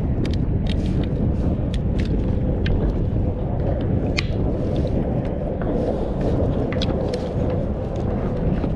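Wind buffeting the microphone as a steady low rumble over choppy water, with scattered sharp clicks and taps throughout.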